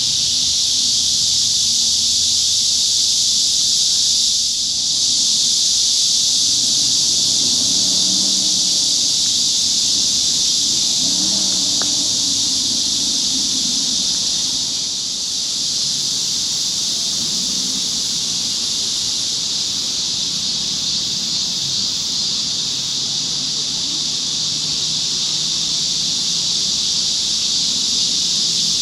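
Chorus of cicadas: a loud, unbroken, shrill buzzing drone.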